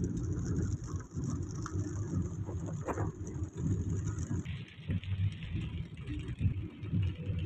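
Road noise inside a moving car in the rain: a low, uneven rumble of tyres and engine with a fainter hiss of rain and wet road above it. The hiss changes character about four and a half seconds in.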